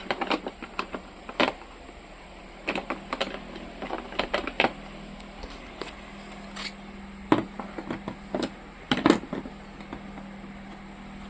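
Irregular clicks and knocks of a drill and its packaging being handled, over a steady low hum; the drill motor is not running.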